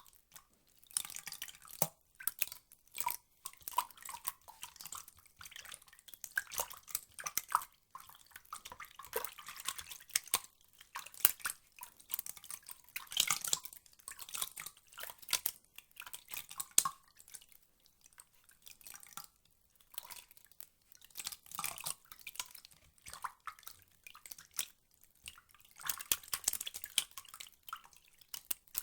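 Water dripping and splashing in irregular clusters of small, sharp drops, with brief lulls between them.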